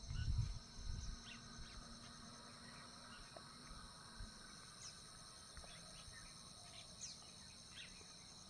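Insects trilling steadily in a high-pitched chorus, with a few short bird chirps scattered through it. Low rumbling bumps in the first second.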